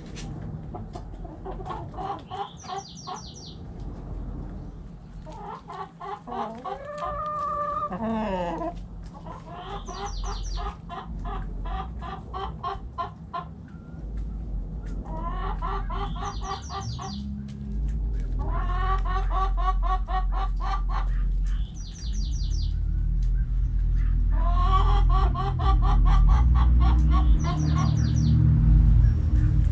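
Chickens clucking in repeated bursts of rapid calls, with one drawn-out rising-and-falling call about seven seconds in. A low rumble gets louder through the second half.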